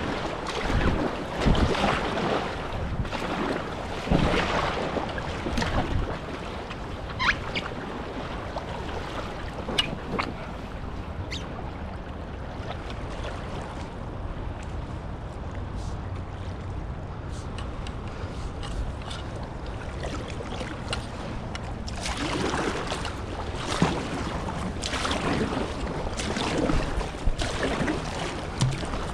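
Water splashing and rushing around a kayak on a river, with wind buffeting the microphone. The splashing is busier in the first few seconds and again from about two-thirds of the way through, quieter in between.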